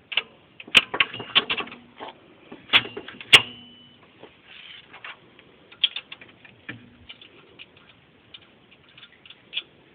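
Metal clinks and clicks of alternator mounting bolts being fitted and started by hand, a few strikes ringing briefly; they come thick in the first four seconds, then sparser.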